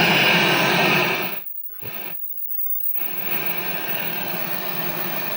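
1978 Pye CT450 (Philips G11 chassis) colour television switched on, its speaker giving out loud static hiss for about the first second. The hiss then drops away, with a short burst near two seconds, and comes back steady and quieter from about three seconds in.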